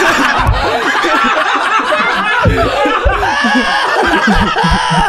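Two men laughing together, their laughs overlapping.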